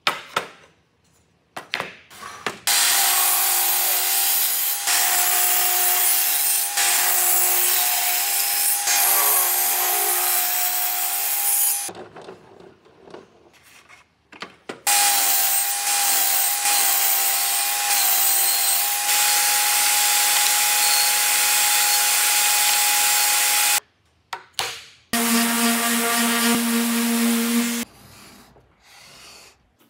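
Table saw ripping walnut boards: two long cuts of about nine seconds each, the blade's hissing cut over the motor's steady whine, separated by a few seconds of quiet. Near the end a shorter, lower-pitched power-tool run of about two and a half seconds.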